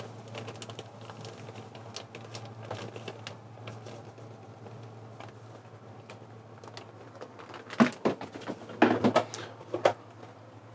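Light clicks and knocks of kitchen utensils and containers being handled, with a burst of louder clattering about eight to ten seconds in, over a steady low hum.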